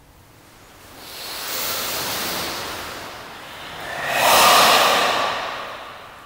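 Karate students doing Goju-ryu ibuki breathing, the forceful, audible breath control that goes with slow, tensed kata movements. Two long, hissing breaths are heard: one starting about a second in, and a louder one about four seconds in.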